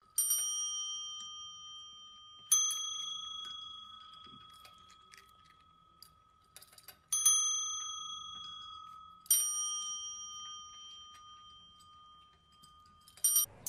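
Chrome desk service bell tapped by a cat's paw: four separate dings a few seconds apart, each ringing out and fading slowly, then two quick short dings near the end.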